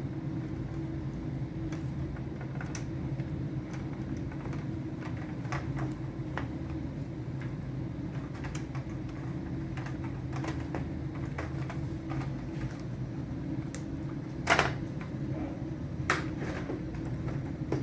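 Scattered light clicks and taps of parts being handled while an LED television is taken apart, with a sharper knock about fifteen seconds in and another a second and a half later, over a steady low hum.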